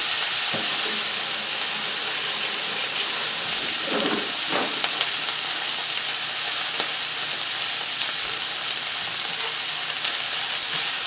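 Wagyu steak searing in a smoking-hot oiled pan, a loud, steady sizzle, with a short stir of movement in the pan about four seconds in.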